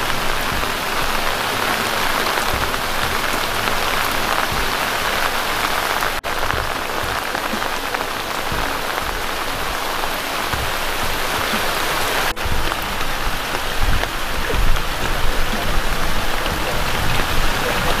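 Heavy tropical rain pouring down in a dense, steady hiss. It breaks off for an instant twice, with a few low thumps near the end.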